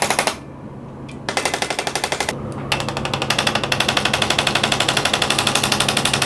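ArthroStim handheld adjusting instrument tapping rapidly on the pelvis, about ten taps a second. It comes in bursts: it stops just after the start, resumes about a second in, pauses briefly about two seconds in, then runs steadily.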